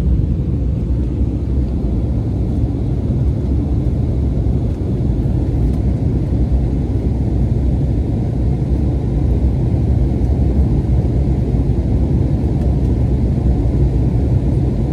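Steady low rumble of an airliner's jet engines and airflow, heard from inside the passenger cabin in flight.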